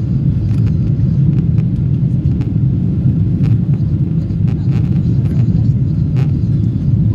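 Steady low rumble of a Boeing 777's engines and airflow, heard inside the passenger cabin in flight.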